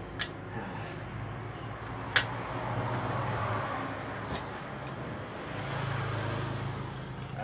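A few sharp metallic clicks from a motorcycle monoshock and hand tools being worked in a bench vise while its retaining clip is fitted. The loudest comes about two seconds in. Under them runs a steady low engine hum that swells and fades.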